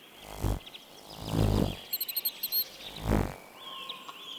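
Hummingbird calls: rapid, thin, high-pitched chips and twitters, with a brief run of very high squeaks about two seconds in. Several soft whooshes come and go about once a second.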